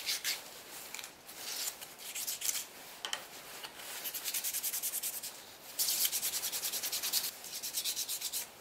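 Sandpaper being rubbed by hand over a small piece of ash for its final sanding. The strokes are irregular at first, then turn into quick, even back-and-forth strokes several times a second in the second half.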